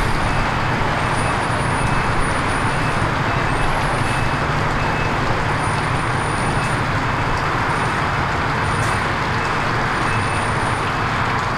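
Steady rumble of idling vehicle engines and road traffic, even throughout.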